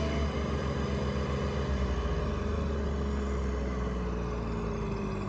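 Heavy diesel engine running at a steady rumble, its note sinking slowly.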